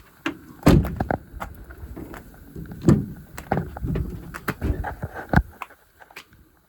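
A string of clunks, knocks and clicks from a truck cab, such as a door and handles being worked, with a few heavier thuds; it dies away about five and a half seconds in.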